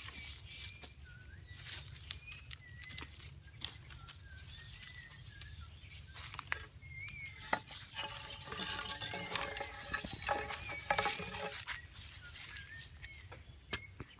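Irregular knocks and scrapes of a wooden stick digging into packed earth, with birds calling in short wavering whistles in the background and a busier stretch of high calls about eight seconds in.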